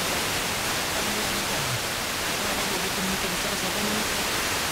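Steady FM static hiss from a receiver tuned to a weak, distant Sporadic-E signal on 92.2 MHz, with faint broken station audio barely audible beneath the noise.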